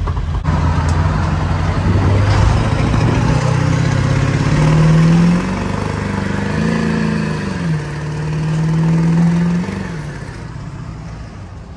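Full-size van's engine heard from inside the cab, accelerating with its pitch rising, dropping at a gear change about five seconds in, then climbing again and holding steady at cruise before easing off near the end, over road noise.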